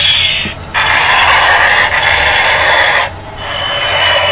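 Battery-operated transforming Airbus robot toy playing its airplane sound effect, a loud, tinny jet-like rush with a faint falling whistle, through its small built-in speaker as it drives and transforms. The sound cuts out briefly twice, about half a second in and about three seconds in.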